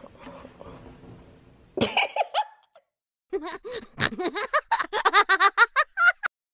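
A boy laughing hard: a short burst about two seconds in, then a long run of quick, rapid laughs that cuts off abruptly near the end.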